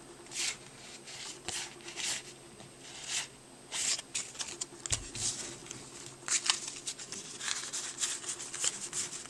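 Yu-Gi-Oh! trading cards being slid and flipped through in the hands, a run of short papery swishes and snaps that come quicker in the second half.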